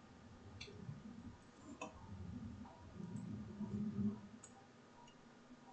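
A few sharp computer mouse clicks, about three, spread over several seconds, over a faint low rumble.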